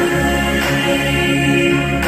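Music with held, sustained chords over a steady low bass and a faint soft beat.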